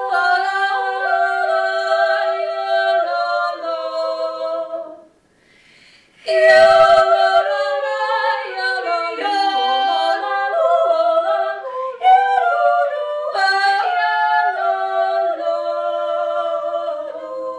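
Two voices singing a cappella in harmony, with a brief pause about five seconds in before the singing resumes.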